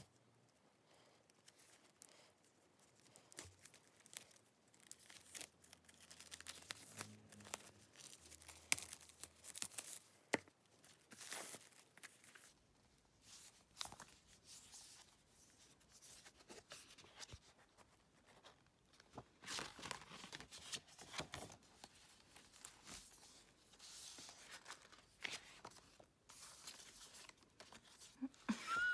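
Faint, irregular crinkling and tearing of plastic shrink-wrap and rustling of paper as K-pop CD albums are unwrapped and their photobook pages and cards are handled.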